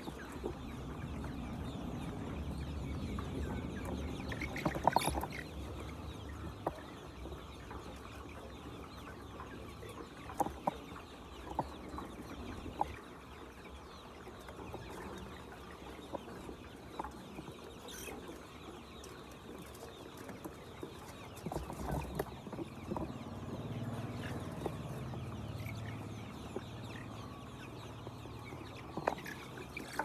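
A large flock of young white chickens clucking and cheeping continuously, with a few short sharp clicks scattered through, the loudest about five seconds in.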